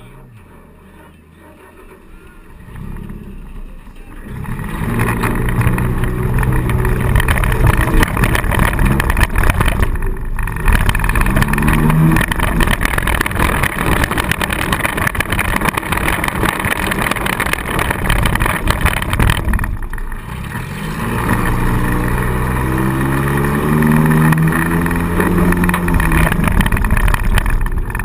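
Four-cylinder demolition derby car engine heard from inside the cabin, quiet at first, then revving hard from about four seconds in. Its pitch rises and falls as the throttle is worked, with brief let-offs about ten and twenty seconds in.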